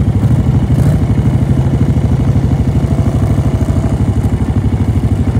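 ATV engine idling close by with a steady, even throb.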